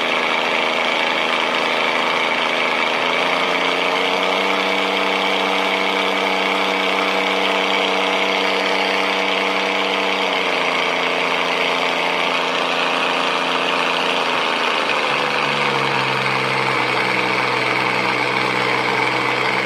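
Light aircraft's propeller engine running steadily. Its pitch rises a few seconds in, holds, then drops in two steps in the second half as the engine speed is brought back.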